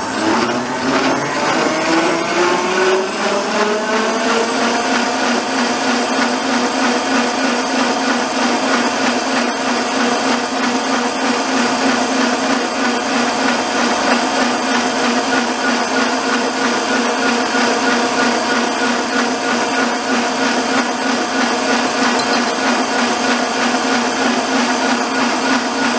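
Electric stand mixer whisking chilled cream into chantilly (whipped cream). Its motor whine rises in pitch over the first few seconds, then runs steady.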